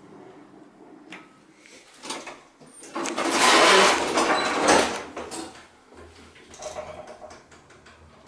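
Schindler traction elevator's car doors sliding shut: a loud rushing rattle lasting about two seconds, starting about three seconds in. After it a steady low hum sets in as the car starts to move.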